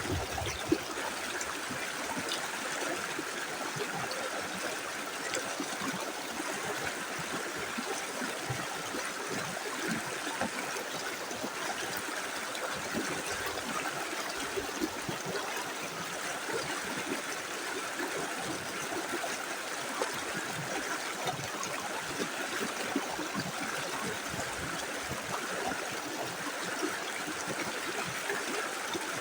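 Small river flowing steadily over stones, a continuous rush of water with small splashes and gurgles.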